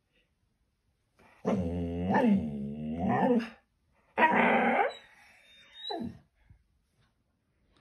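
Scottish terrier vocalising: one long wavering, grumbling call of about two seconds, then a rougher, louder call about four seconds in, and a short one near six seconds.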